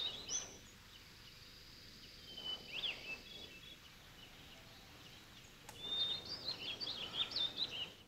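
Small birds chirping in short runs of quick, high notes: once right at the start, briefly around three seconds in, and again in a longer run from about six seconds in.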